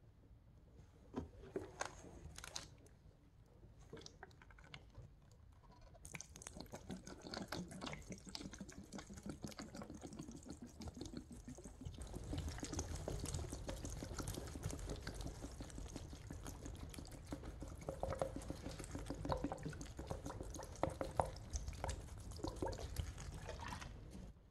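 Household cleaning liquid poured from plastic bottles onto sponges in a plastic basin: a steady splashing pour with fizzing and dripping. It starts about six seconds in, gets louder about halfway when two bottles pour at once, and stops just before the end. A few sharp clicks come in the first seconds.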